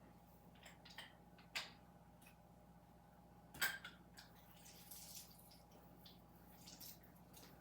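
A few faint clinks and taps of kitchenware, the loudest about three and a half seconds in, over quiet room tone.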